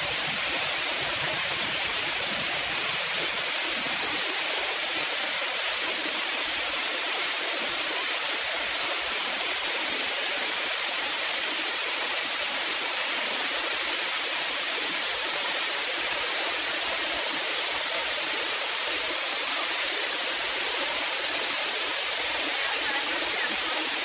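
Khlong Lan Waterfall, a falls about 100 m high, pouring steadily over rock: an even, unbroken rush of falling water, more hiss than rumble.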